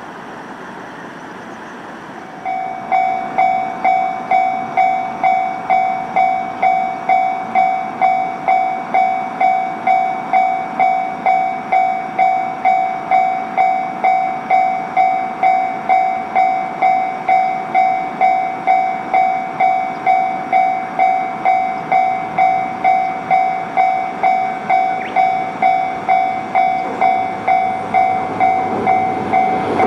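Railway level-crossing warning bell ringing about twice a second, starting a few seconds in, each strike decaying before the next. This signals an approaching train, here a JR Kyushu YC1 hybrid railcar, whose running noise grows near the end.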